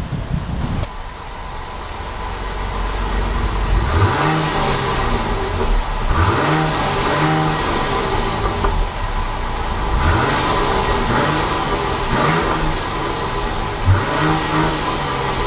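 2016 Jeep Grand Cherokee engine on a cold start, heard at the exhaust tip. It runs at idle and is revved in a series of short blips, each rising and falling in pitch, about eight in all from a few seconds in.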